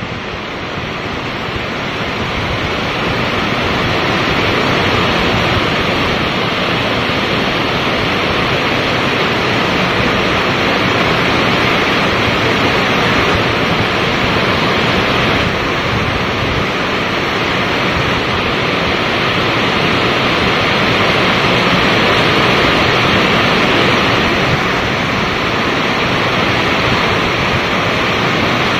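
Rain falling steadily, an even hiss that grows louder over the first few seconds and then holds.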